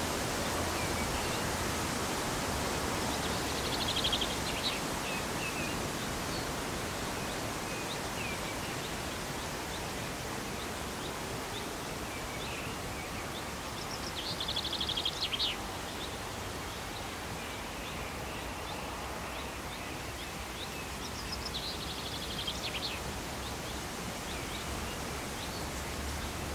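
A steady outdoor hiss with a small songbird singing a short, rapid trilled phrase three times: about four seconds in, around fifteen seconds, and again around twenty-two seconds.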